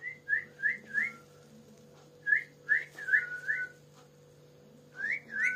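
Pet green parakeet giving short whistled notes, each a quick rise and fall: four in a row, a pause, four more, then a few more near the end. A steady low hum runs underneath.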